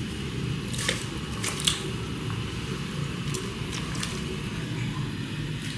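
Raw chicken gizzards being pushed by hand off a plate and dropping into a pot of hot water: a few soft wet plops and clicks, most between one and two seconds in, over a steady low rumble.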